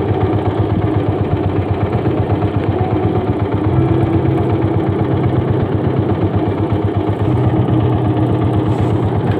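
A small fishing boat's engine running steadily at slow trolling speed, with an even, rapid beat.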